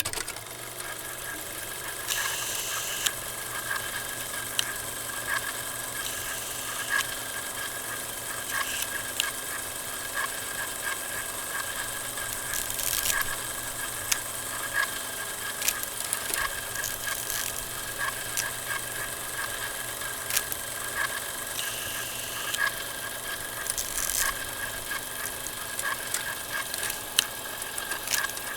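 Old film projector sound effect: a steady mechanical whir and hum with a regular clatter, scattered crackling clicks and pops, and a few short bursts of hiss.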